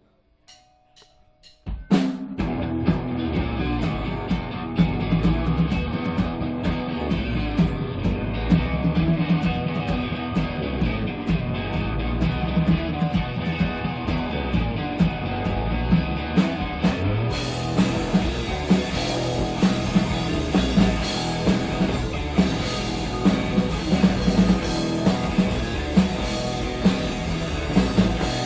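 A few sharp clicks, then a live rock band comes in loud all at once: drum kit with kick and snare driving a steady beat, with electric guitar and bass. About two-thirds of the way through, the sound gets brighter as cymbals come in.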